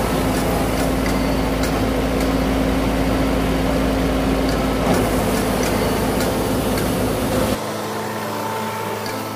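Rice combine harvester engine running steadily with a low rumble. About seven and a half seconds in the sound cuts abruptly to a quieter, thinner hum.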